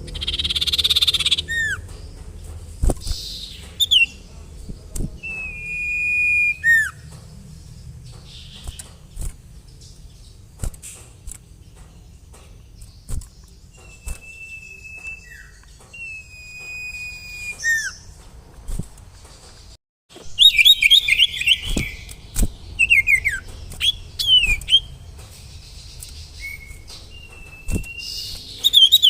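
A sirtu songbird singing: clear whistled notes, some held level and some sliding down in pitch, spaced a few seconds apart. About two-thirds through comes a loud, fast run of chirps. A low hum sits under it throughout.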